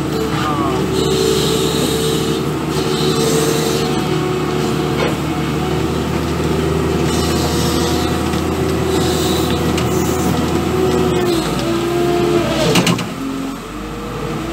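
New Holland W130 wheel loader's diesel engine running steadily while the loader works a bucket of rubble. Near the end its revs drop.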